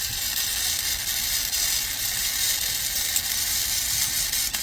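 Wire-feed welder's arc burning steadily, a continuous high-pitched noise.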